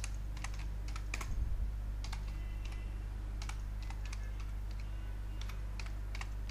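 Computer keyboard being typed on: unhurried, uneven keystrokes, two or three a second, as a phrase is typed out letter by letter, over a steady low hum.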